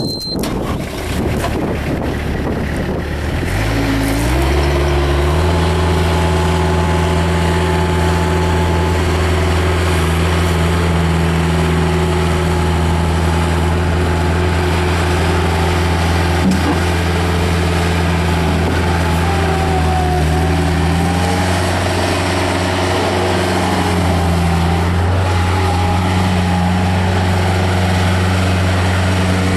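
Bobcat 753G skid steer's Kubota V2203 four-cylinder diesel running; it is throttled up about four seconds in and then holds steady at high revs.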